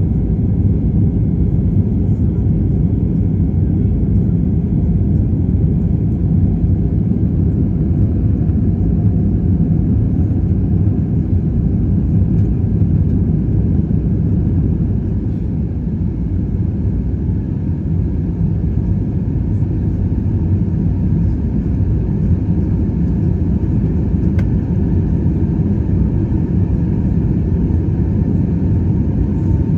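Steady low rumble of a jet airliner heard from inside the passenger cabin: engine and airframe noise with no breaks.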